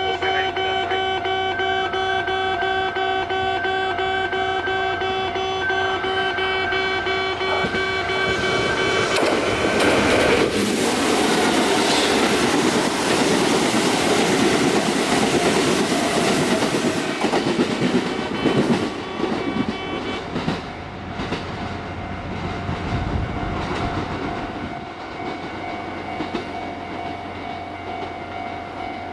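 Railway level crossing alarm at a Kintetsu Nagoya Line station crossing, sounding steadily with its distinctive electronic tone. About ten seconds in, a train passes over the crossing with a loud rumble for about eight seconds, then fades with wheel clicks while the alarm keeps sounding.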